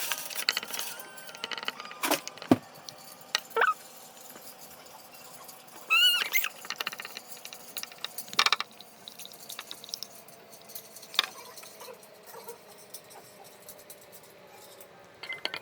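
A baby's short high squeals, a few seconds apart, among scattered light clicks and taps.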